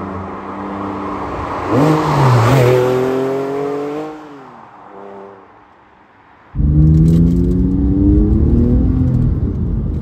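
Porsche 911 (997.1) flat-six with a modified exhaust accelerating along the road. Its note swells and climbs about two seconds in, then falls away and fades as the car passes. About six and a half seconds in, the engine is suddenly heard loud and close, revs climbing again before it settles.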